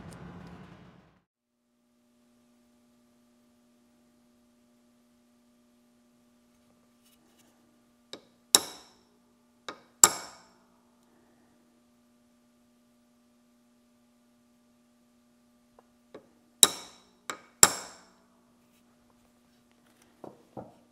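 Hammer blows on a center punch held to small metal brackets in a bench vise: sharp, ringing metallic strikes in two groups, about 8 and 16 seconds in, each a light tap or two followed by two hard blows, then two lighter taps near the end.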